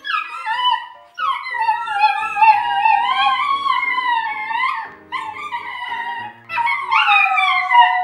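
Two Italian greyhounds howling together in long, wavering, falling howls over background piano music. The howling breaks off briefly about a second in and again about five seconds in, then starts up again.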